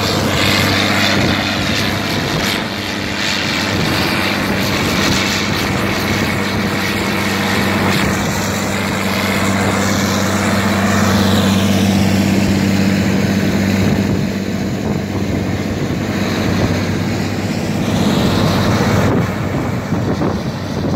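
John Deere 8640 tractor's diesel engine running steadily under load as it pulls an articulated lorry out of snow, a continuous deep drone with hiss over it.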